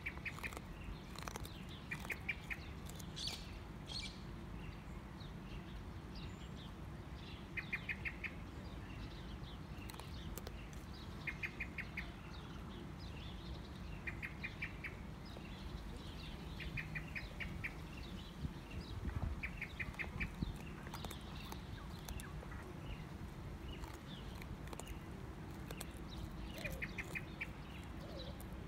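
Wallaby crunching and chewing a raw carrot, with irregular crisp bites and clicks. Every few seconds a bird gives a short, rapid run of four or five high pips.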